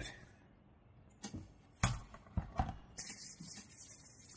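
Hand lotion being worked into the hands: a few soft, wet clicks and squelches, then from about three seconds in a steady high hiss of palms rubbing together.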